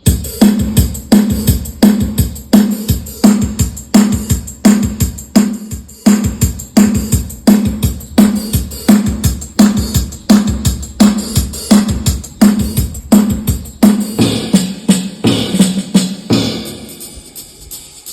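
Yamaha PSR-I500 keyboard's built-in accompaniment style (style 269) playing a steady drum-kit rhythm pattern at about two beats a second. It drops away and gets quieter near the end.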